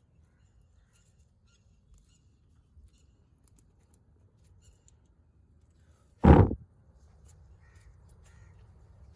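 A single sharp firecracker bang about six seconds in, after a stretch of faint scattered crackles and ticks.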